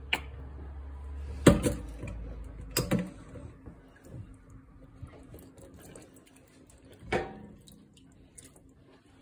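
Several sharp knocks and clatters of objects being handled, the loudest about a second and a half in, over a low hum that cuts off at that same moment.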